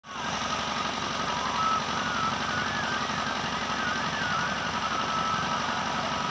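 A steady engine-like mechanical rumble with a fast low pulsing, and a faint wavering tone above it.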